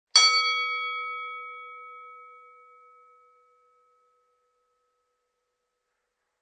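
Boxing ring bell struck once, ringing out and fading away over about three seconds.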